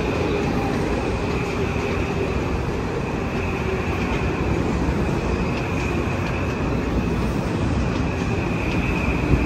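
Train running with a steady rumble and a faint, thin high whine.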